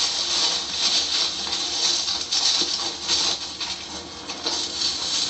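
Footsteps crunching and rustling through dry leaf litter, in uneven steps.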